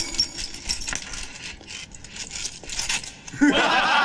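Wooden geta clogs clacking on a wooden floor: an irregular run of sharp clicks from several feet. About three and a half seconds in, a group of men bursts out laughing.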